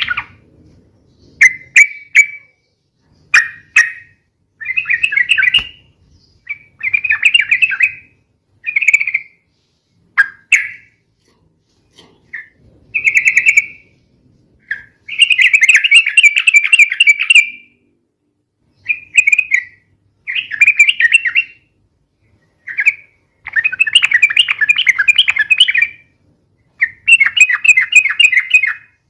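Yellow-vented bulbul (trucukan) song: loud, bubbly, warbling phrases repeated with short pauses, mostly brief, with a few longer rolling runs of two to three seconds.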